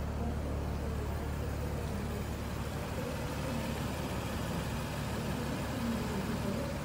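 Audi RS5 Sportback's 2.9-litre twin-turbo V6 idling steadily.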